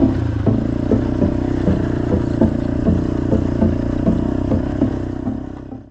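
Small off-road bike engine running steadily, with a light clatter repeating about two to three times a second; the sound fades out at the very end.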